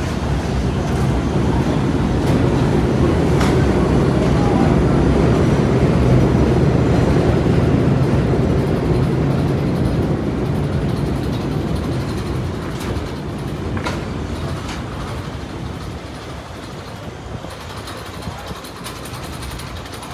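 Subway train running on the rails, its low rumble building for about six seconds and then slowly fading, with a few sharp clicks of the wheels along the way.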